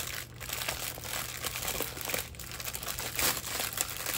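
Plastic packaging of diamond-painting drill bags crinkling as it is handled and rummaged through: a dense, continuous run of fine crackles.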